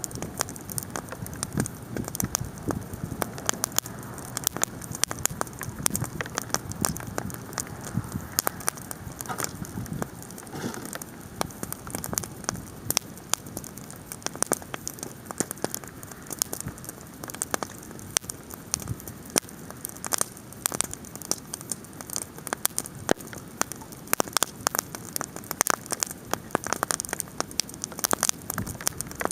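Bonfire crackling, with a dense, irregular stream of sharp pops and snaps over a low steady rush of burning.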